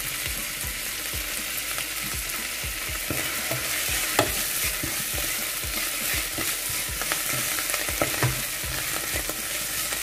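Fresh coriander and mint leaves sizzling in hot oil in a non-stick kadai. A wooden spatula stirs them, scraping and knocking against the pan, with the sharpest knocks about four seconds in and around eight seconds.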